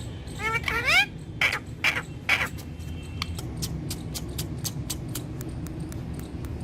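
Indian ringneck parrot calling: a few quick rising chirps about half a second in, then three short harsh squawks, with a run of sharp clicks going on underneath.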